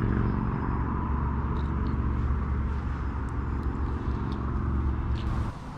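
Steady low engine hum with a few faint light clicks; it drops away suddenly near the end.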